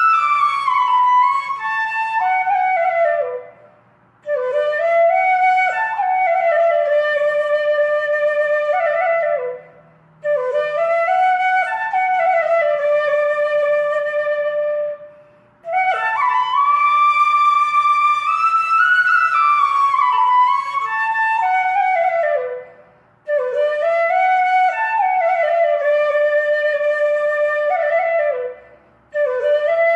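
Background music: a solo flute playing a slow melody in phrases of several seconds, with short breaks between them.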